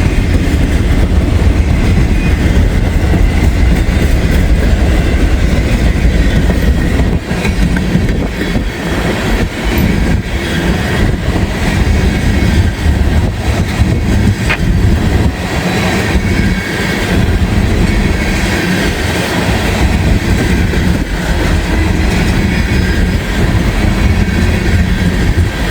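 Freight train cars rolling past at close range: a loud, steady rumble of steel wheels on rail.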